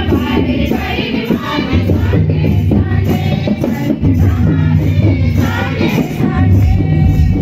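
A group singing a song with musical accompaniment, led by a woman's voice on a microphone.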